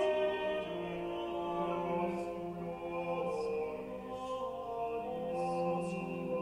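Slow background music of long held notes, the chord changing every second or two.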